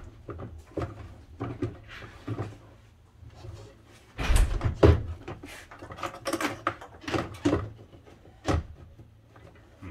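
Knocks, clunks and rattles of Jeep Grand Cherokee rear door parts being tugged and shifted while they are hung up on something. The loudest burst of knocking comes about four seconds in.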